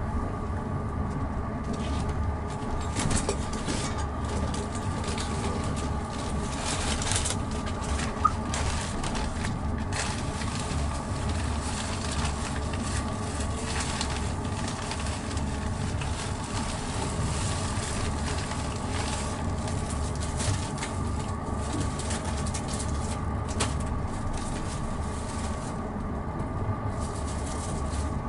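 Moving passenger train heard from inside the carriage: a steady low rumble of the wheels running on the track, with a faint steady tone over it. A single sharp knock about eight seconds in.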